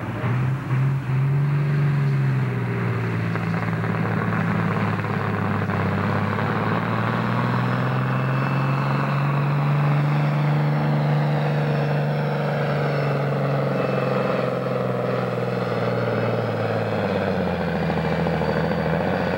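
John Deere farm tractor's diesel engine pulling hard under full load against a weight-transfer sled: a loud, steady heavy engine note that sags and drops in pitch near the end as the sled stops the tractor.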